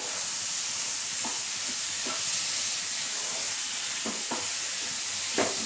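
Onion-tomato masala with boiled eggs sizzling in a frying pan as it is stirred, with a few soft knocks of the spatula against the pan.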